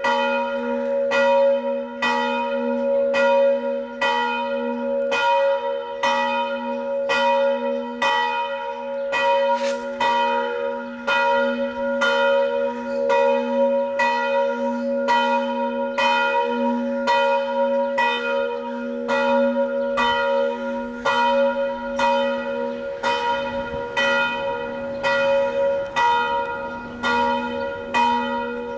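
A single church bell swinging and tolling steadily, with a little more than one stroke a second, each stroke ringing on into the next: the noon ringing.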